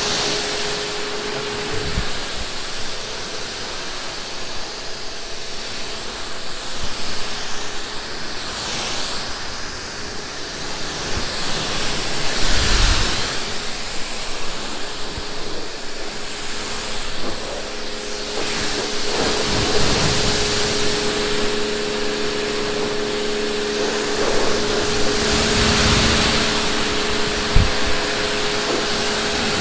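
Electric pressure washer's trigger gun spraying a jet of water over a car to rinse off the wash soap: a steady hiss that swells and fades as the spray sweeps across the glass and roof. A steady low hum runs underneath, stronger in the second half.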